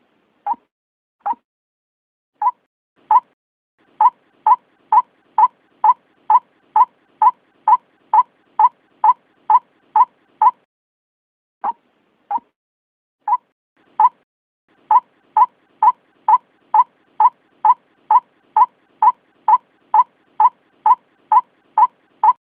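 White-breasted waterhen's monotonous night call: short, clipped notes all on one pitch. They come slowly at first, then settle into a steady run of about three a second. Near the middle the run breaks off for a moment, then picks up slowly again into a second steady run.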